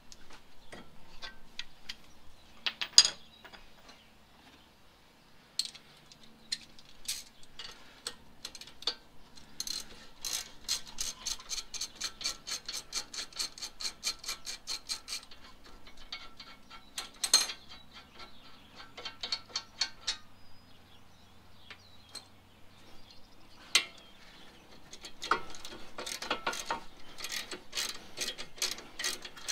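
Hand ratchet clicking as it spins out the 19 mm brake caliper bracket bolts, in runs of rapid even clicks. A few single louder clacks of the tool on the bolts are mixed in.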